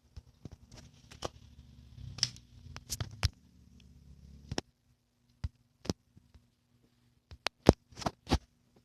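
Homemade taped paper squishies being handled and squeezed: scattered sharp paper crinkles and taps, the loudest cluster near the end. A low steady hum runs underneath and stops about halfway through.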